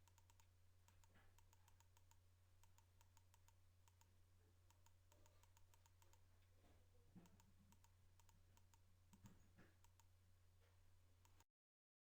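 Near silence: a faint steady low hum with a running series of faint, sharp clicks.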